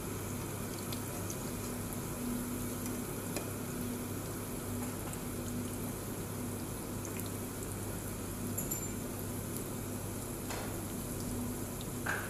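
Cabbage-and-tuna omelette patties frying in a pan of hot oil: a steady sizzle with scattered small pops, over a steady low hum.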